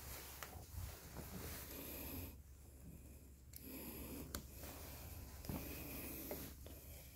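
Faint handling noise of wiring connectors and a small plastic relay being fitted by hand, soft rustling with a few small clicks, over a low steady hum.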